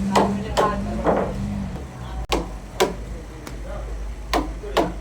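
Sharp knocks and bangs in a sawmill, about seven, irregularly spaced, like wood or metal being struck. A steady low machine hum runs under the first ones and stops a little under two seconds in.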